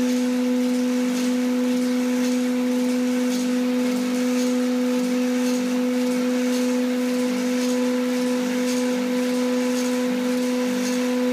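A steady hum at one unchanging pitch, with a faint tick about once a second.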